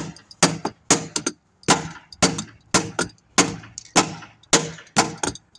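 Repeated hammer strikes on metal, about two a second, each with a short clanging ring, driving a part in until it is fully seated.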